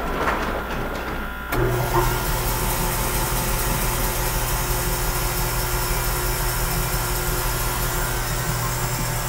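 Butcher Boy meat-cutting bandsaw switched on about a second and a half in, its motor and blade then running steadily with an even hum and hiss, pretty quiet for the machine.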